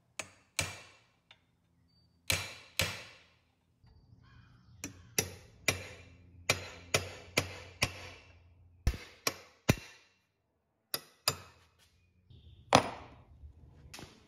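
A series of sharp knocks, like hammer blows, about eighteen at irregular intervals, singly and in quick runs, each ringing off briefly; the loudest comes near the end.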